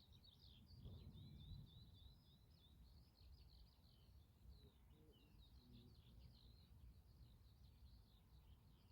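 Faint birdsong: small birds twittering in a continuous string of high chirps, over a low background rumble.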